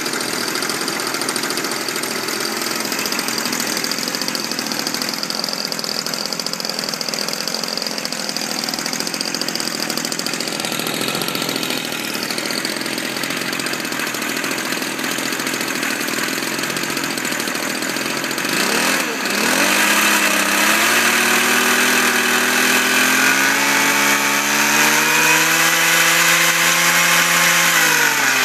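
Small 25cc Homelite two-stroke string-trimmer engine running on a friction-drive bicycle, its roller spinning the raised rear wheel. About 19 seconds in the engine dips briefly, then picks up again with its pitch climbing slowly as it revs higher, and drops back near the end.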